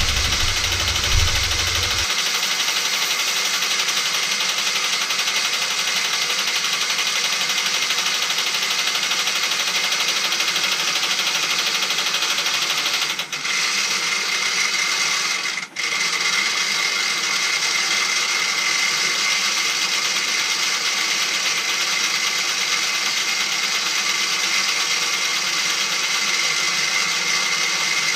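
Electric motor and gear train of a Meccano model railway crane running steadily, a mechanical whirr with a high whine. Twice, around the middle, it dips for a moment, and after that the whine is stronger.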